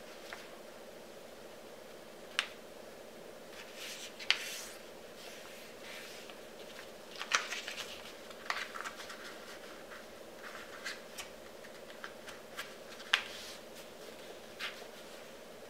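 A sheet of colored paper being folded and creased by hand: scattered rustles and a few sharper crackles as the corners are pressed down, over a faint steady hum.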